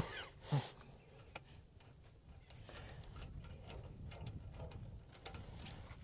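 Faint metal clicks and taps of wrenches working the steel hydraulic hose fittings on a backhoe control valve, scattered and irregular, with a brief breathy burst about half a second in.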